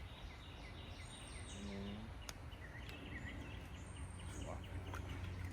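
Outdoor ambience: a steady low wind rumble with small birds chirping repeatedly, a brief low murmur of a voice and one sharp click a little after it.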